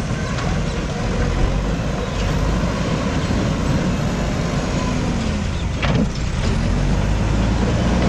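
JCB backhoe loader's diesel engine running, its pitch rising and falling as the machine works the loader bucket and moves. A brief sharp sound with a swooping pitch cuts in about six seconds in.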